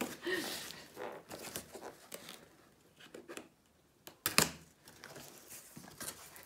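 Scissors cutting through the taped end of a cardboard shipping box, with rustling and tearing of cardboard as the end flap is opened; one loud sharp snap comes just after four seconds in.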